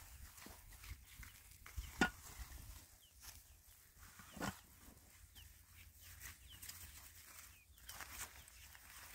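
Dishes and pots being handled: a few sharp knocks and clinks, the loudest about two seconds in and another about four and a half seconds in, over faint high chirps.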